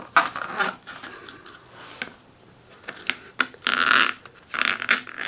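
A steel retaining spring being worked through a hole in a radiator deflector by hand: irregular scraping and rubbing with a few small clicks, the loudest a rasping scrape just under a second long about four seconds in.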